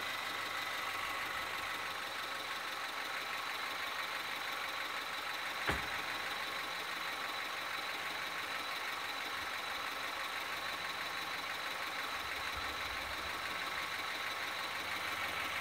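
An engine idling steadily, with a single sharp knock a little before the middle.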